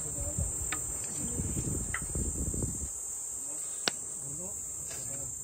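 Steady high-pitched chorus of insects, with low rustling over the first few seconds and a single sharp click a little before four seconds in.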